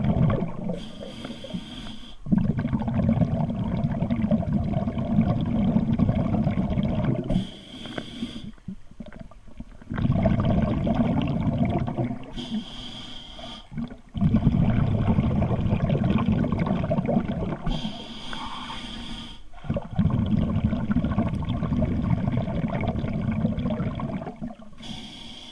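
Scuba diver breathing underwater through a regulator. Each breath in is a short hiss and each breath out is several seconds of low, rumbling bubbles, repeating about every five seconds.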